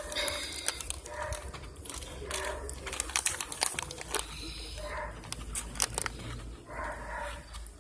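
Slime of PVA glue and Tide detergent being stirred in a mixing bowl: irregular wet, sticky clicks and crackles as it starts to form, with faint voices in the background.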